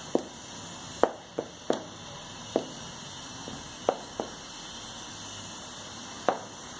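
Stiletto high heels clicking on a ceramic tile floor: about eight sharp heel taps at an uneven pace, then a pause of about two seconds before one last tap near the end.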